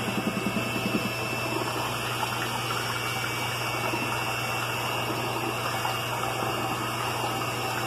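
Handheld electric mixer running steadily with a constant motor whine, its blades churning a thick, wet mash of ripe bananas in a steel pot to purée it smooth.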